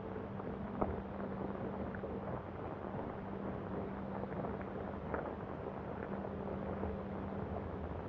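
Steady hiss and low hum of an old sound-on-film newsreel recording, with a few faint clicks.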